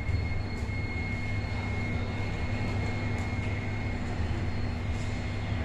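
Steady low hum of a Hitachi elevator car and its machinery, with a faint high whine that stops about four seconds in and a few light clicks.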